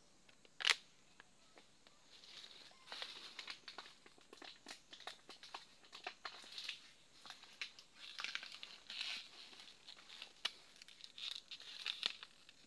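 Dry leaf litter rustling and crackling in irregular bursts, with a single sharp click about a second in.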